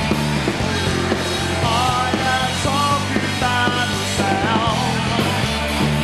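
Live rock band playing with drums, bass and distorted electric guitars between sung lines, with a melodic line rising over the band from about two seconds in until nearly five seconds.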